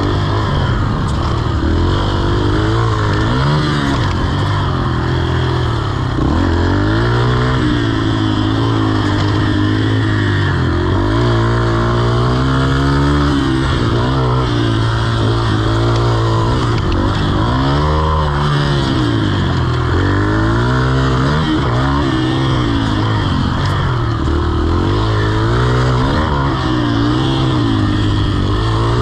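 Yamaha TT-R125's single-cylinder four-stroke engine under hard riding, its revs rising and dropping again and again every couple of seconds with throttle and gear changes.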